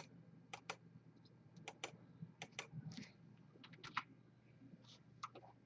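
Faint clicking of a computer keyboard and mouse: scattered sharp clicks, several in quick pairs, over a faint low steady hum.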